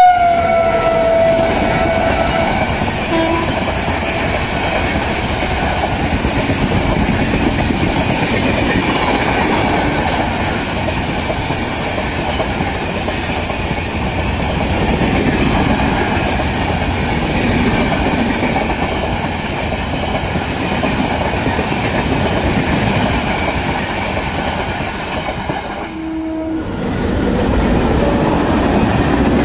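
Electric locomotive's horn ending as it passes, its tone dropping in pitch, followed by the steady rush and clickety-clack of an express train's coaches running through a station at speed. After a brief break near the end, another express's coaches rush past.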